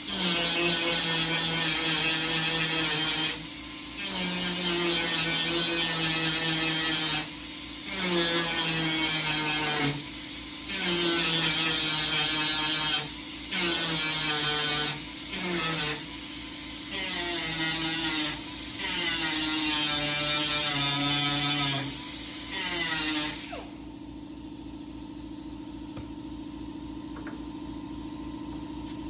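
Handheld rotary power tool run in about a dozen short bursts of one to three seconds, its pitch dropping as it winds down after each trigger release. It stops about 23 seconds in, leaving a steady low hum.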